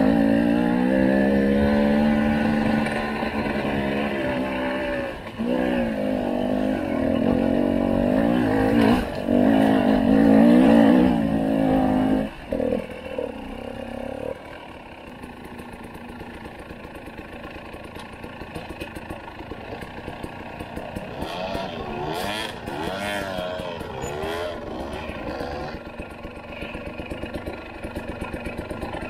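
Husqvarna TE300i two-stroke enduro motorcycle engine revving up and down under throttle on a dirt trail. About halfway through it drops to a much quieter low run, with rapid clattering ticks from the bike over rough ground.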